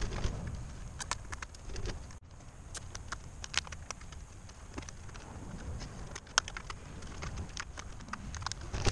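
Scattered light clicks and taps as gloved hands handle the winch control-box wiring and its zip ties, with a sharper click about six seconds in and another near the end.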